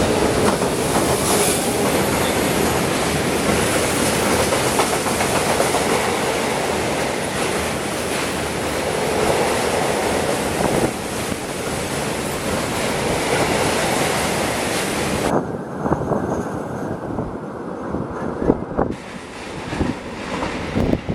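Freight train of tank wagons hauled by an electric locomotive passing close, wheels clattering and rumbling over the rails. After about fifteen seconds the sound drops to a quieter, muffled rumble with scattered clicks as the wagons move away.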